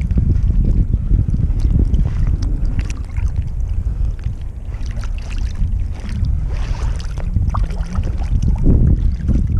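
Water sloshing and splashing as a long-handled scoop is worked under the surface by a wader, over a heavy low rumble of wind buffeting the microphone.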